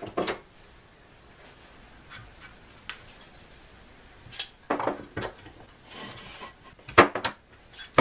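Metal bar clamps clinking and clacking as they are set and tightened around a glued-up wooden rotor on a workbench: scattered separate knocks, a cluster about four to five seconds in and the loudest near the end.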